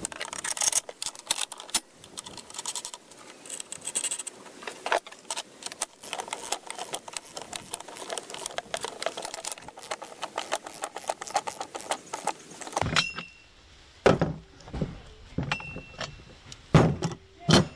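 Steel bolts, nuts and the hydraulic cylinder's bracket clinking and rattling as the cylinder is bolted to the toe roller assembly by hand. In the last few seconds come a few separate sharp clanks, some with a brief metallic ring, as a large wrench goes onto the hardware.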